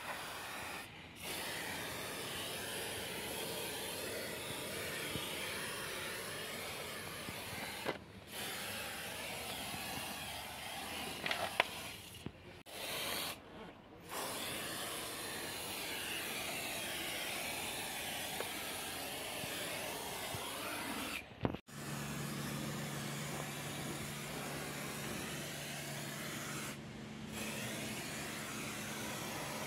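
Aerosol silicone spray hissing from a can's straw nozzle onto rubber van door seals to lubricate them. It comes in long sprays broken by a few short pauses.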